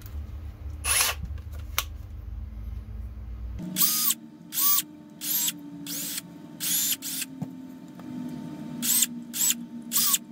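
Power drill with a 3 mm bit run in a string of short bursts from a little under four seconds in, reaming out the printed screw holes of a 3D-printed plastic part to clean them up.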